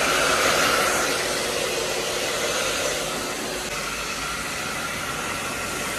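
Hair dryer blowing steadily, a constant rush of air with a faint motor whine, easing slightly in loudness and stopping suddenly at the very end.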